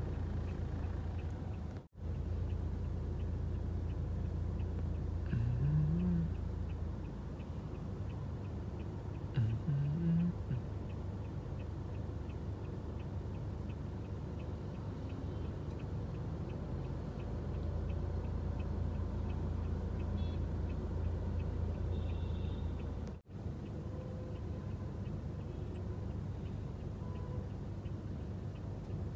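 Steady low rumble of a moving car heard from inside the cabin, with a faint regular ticking throughout. Two short rising tones come about six and ten seconds in, and the sound cuts out briefly twice.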